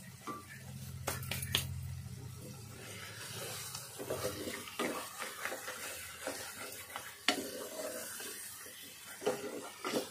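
A spatula stirring and scraping chicken masala with gram flour as it fries in an open pressure cooker, with a low sizzle and a few sharp knocks of the spatula against the pot.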